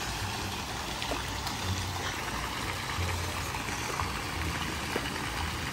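Pool water splashing and trickling as feet kick and a child plays in the shallow water, with a low rumble that comes and goes.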